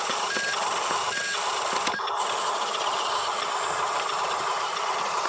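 Radio-controlled toy dump truck's electric drive motor and gearbox whirring steadily as it drives slowly over loose dirt.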